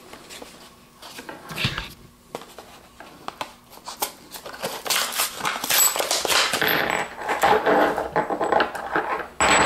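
Plastic blister pack and card backing of a spark plug thread repair kit being torn open and handled. Scattered clicks at first, then from about halfway a steady run of crinkling and crackling of stiff plastic and card.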